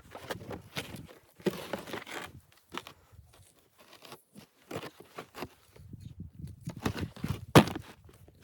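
Irregular crunching and rustling handling noises, with one sharp knock near the end.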